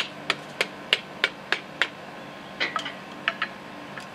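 A wooden hammer tapping quickly and evenly on top of a piston, about three taps a second, driving it through a piston ring compressor into a Chevy 350 cylinder bore. A few lighter, irregular knocks follow in the second half.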